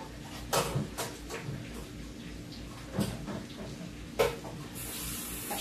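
A few separate knocks and clicks of kitchen utensils and cookware being handled, then near the end a steady hiss of food sizzling in a frying pan sets in.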